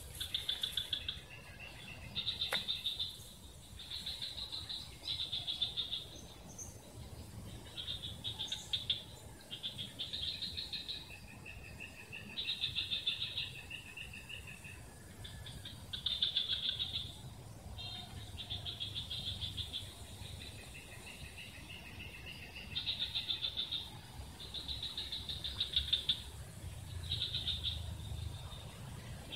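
A chorus of small calling animals: rapid pulsed chirps in bursts of about a second, repeating every second or two, with a softer, lower trill between some of them.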